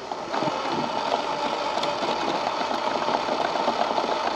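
Axial SCX24 1/24-scale RC crawler's small electric motor and gear drivetrain whirring under load as it crawls up a rock line: a steady whine with a fine rattle, picking up just after the start.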